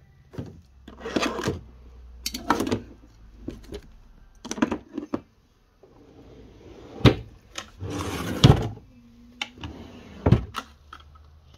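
Cosmetic bottles and jars being handled and set down: about ten separate knocks and clatters, with a short burst of rustling about eight seconds in.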